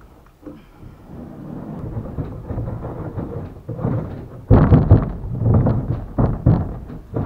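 A wooden boat console being dragged and set down on a pontoon boat's deck: a low scraping rumble, then several heavy knocks of the wood against the deck about four and a half to seven seconds in.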